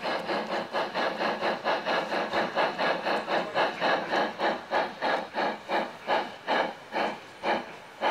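Gauge 1 (1:32) model steam locomotives chuffing in a regular rhythm, about four beats a second at first and slowing to about two a second near the end.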